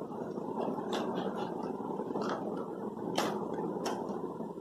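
Steady background noise with a few light clicks and taps from marker pens and a plastic ruler being handled on a table, the loudest about three seconds in.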